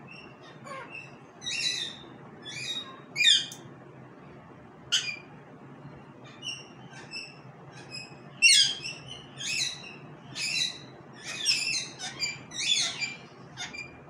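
Indian ringneck parakeet calling: a dozen or more short, high chirps and squawks at uneven intervals, the loudest about eight and a half seconds in.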